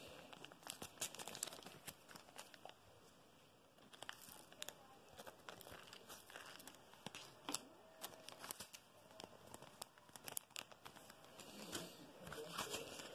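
Faint, irregular crinkling of thin plastic with scattered small clicks, from diamond-painting supplies being handled.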